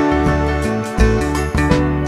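Background music with a steady beat: sustained pitched notes over regular drum hits.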